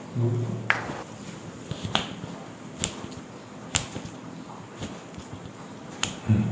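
A handful of sharp, irregularly spaced clicks, about five in all, over a faint background, with a brief low hum near the start and again near the end.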